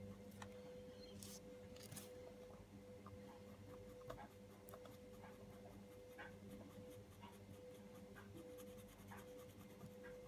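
Faint scratching and light ticks of a coloured pencil tip rubbing fine pencil dust into paper, over a steady low hum.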